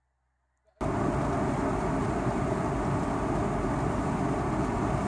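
Near silence, then less than a second in a steady, loud road noise starts abruptly: tyre and engine noise of a car driving along, heard from inside the cabin.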